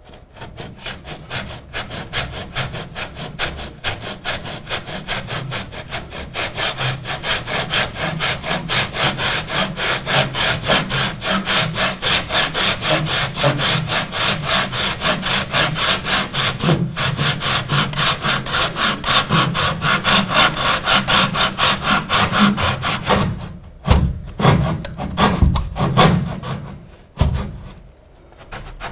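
Handsaw, its blade held flat, cutting through the foot of a wooden door casing in steady back-and-forth strokes, undercutting it to tile height so a floor tile can slide beneath. The sawing stops with a few knocks near the end.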